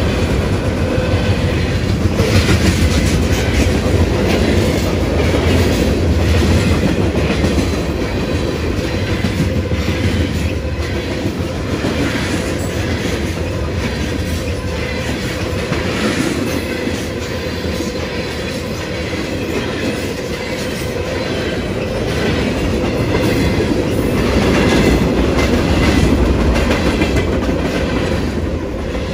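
Cars of a long manifest freight train rolling past at trackside: a steady rumble of steel wheels on rail, with a continual clickety-clack as the wheels pass over the rail.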